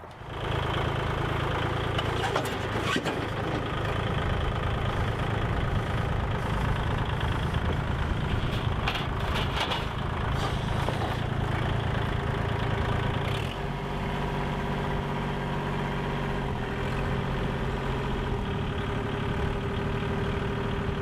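Kubota L2501 compact tractor's 25 hp Kubota diesel engine running steadily as the tractor is driven down off a trailer, with a few short knocks in the first half. About two-thirds of the way through the engine note drops and settles lower.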